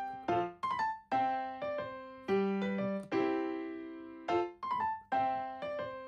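Background music: a light keyboard tune of struck notes and chords that each ring and fade, a few notes a second.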